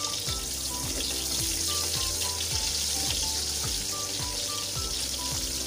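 Sliced onions sizzling steadily as they fry in hot palm oil, under background music with a steady beat.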